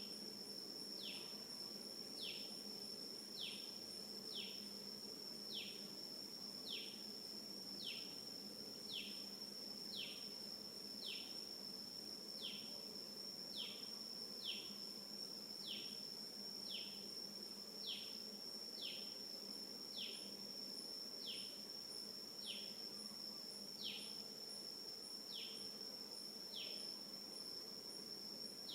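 Insects, such as crickets or cicadas, keep up a steady high-pitched drone. Over it, a short falling call repeats evenly about once a second.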